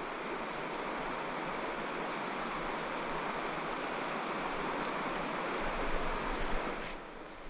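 Shallow river riffle: water flowing over rocks as a steady rush, with a brief low rumble about six seconds in, then becoming quieter about seven seconds in.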